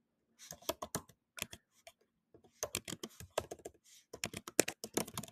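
Typing on a computer keyboard: irregular runs of quick key clicks starting about half a second in, with a brief pause around the two-second mark.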